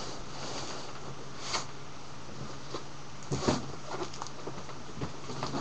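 Cardboard box and packaging handled around a heavy PC case: scattered scrapes, rustles and knocks, the loudest a little past three seconds in, over a steady low hum.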